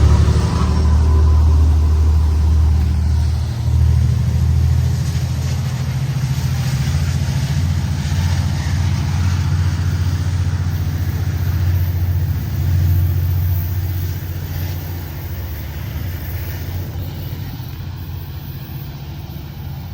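Diesel-hauled freight train passing, a steady low engine rumble that slowly fades over the last several seconds.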